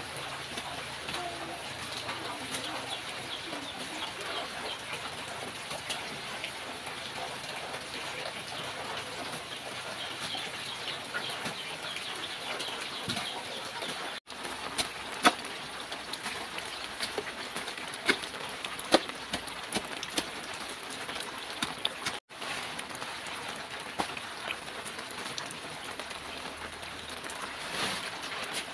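Steady hiss of water running from an outdoor tap while hands wash things under it, with birds calling and scattered sharp clicks and knocks; the sound drops out briefly twice.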